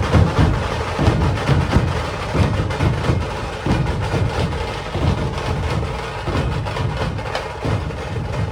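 A Maharashtrian dhol tasha ensemble playing a fast, driving beat: deep barrel dhol drums booming under the sharp, rattling strokes of the tasha drums.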